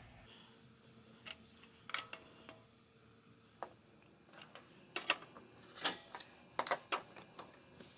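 Faint, irregularly spaced light clicks, some in quick pairs, most of them in the second half: a socket and torque wrench being worked on the oil filter housing cap.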